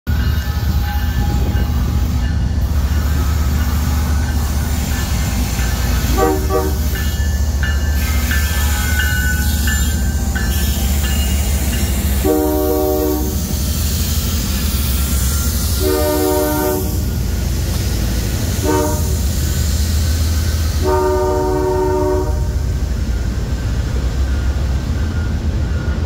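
CSX freight train's diesel locomotives running past close by, while the lead locomotive's air horn gives a short toot and then the grade-crossing signal of long, long, short, long. Near the end, freight cars roll by on the rails.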